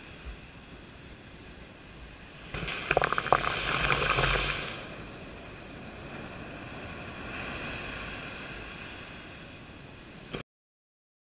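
Surf washing up over sand. A wave rushes in about two and a half seconds in, fizzing and crackling as it spreads, then fades. A softer wash follows, and the sound cuts off suddenly near the end.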